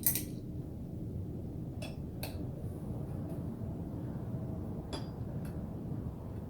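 Light metallic clicks and clinks of a bicycle chain and tools being handled during a chain swap: one sharp click at the start, then pairs of lighter ones about two and five seconds in, over a steady low background rumble.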